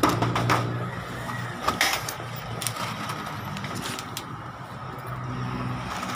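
A steady low motor hum with scattered sharp knocks and clicks, most of them in the first two seconds.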